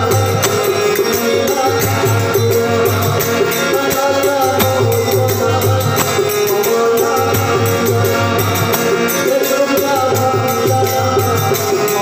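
Live Indian devotional bhajan: tabla and a barrel drum keep a steady rhythm under a sustained harmonium melody, with jingling hand percussion and a male voice singing.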